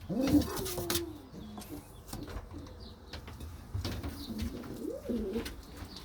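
Stichelbaut pigeons cooing: a low, arching coo just after the start and another about five seconds in, with scattered light clicks and scuffs in between.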